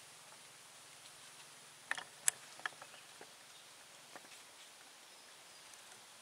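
Faint, quiet outdoor hiss with a quick run of sharp clicks and ticks about two seconds in and one more near four seconds.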